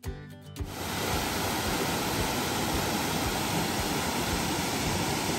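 Steady rushing of a small waterfall spilling over rock ledges into a shallow creek, starting about half a second in just as a snatch of music ends.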